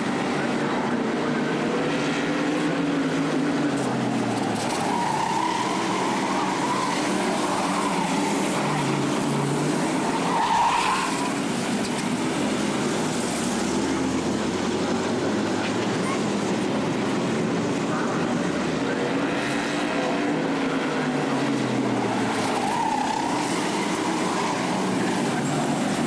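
A pack of figure-eight stock cars racing, several engines at once rising and falling in pitch as the drivers accelerate and lift through the turns. There is a brief louder moment about ten seconds in.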